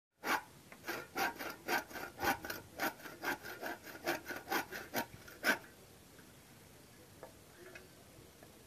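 Bow saw cutting through a length of bamboo, with rasping back-and-forth strokes about twice a second. The sawing stops about five and a half seconds in.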